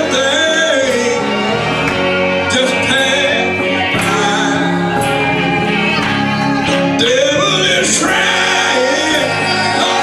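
Gospel choir of men and women singing live, with guitar and drum accompaniment.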